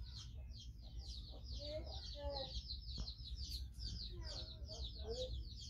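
A bird chirping quickly and without pause, about five high chirps a second, with fainter, lower calls now and then underneath.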